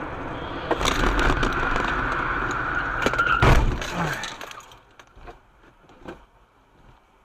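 Car tyres squealing under hard braking for about two and a half seconds, then one loud crunching impact as the car runs into the back of an SUV in a rear-end collision, followed by a few small clinks and rattles of debris.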